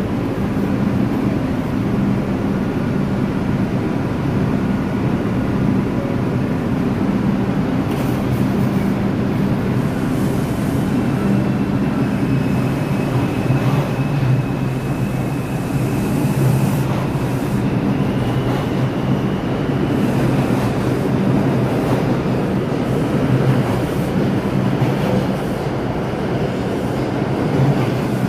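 New York City subway trains at an underground station platform: a steady low hum of a standing train, then cars rolling along the platform with rumbling and clattering wheels. A thin high whine rises slightly from about twelve to twenty seconds in.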